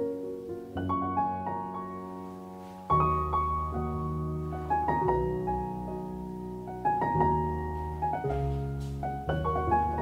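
Background piano music: slow chords struck and left to ring, a new chord about every one to two seconds.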